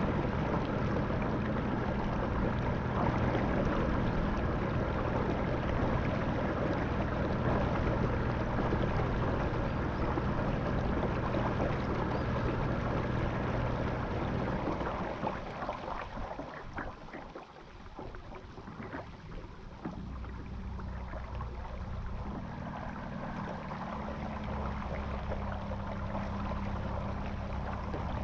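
Motor of a Vibe Yellowfin 100 kayak running with a steady hum, over water rushing along the hull. About halfway through it drops off and goes quieter for several seconds, then picks up again a little less loud.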